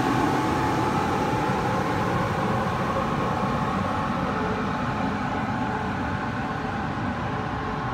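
Electric push-pull express train (E1000 series) rolling past on the rails, a steady rumble of wheels with a faint steady electric whine, slowly fading as the train moves away.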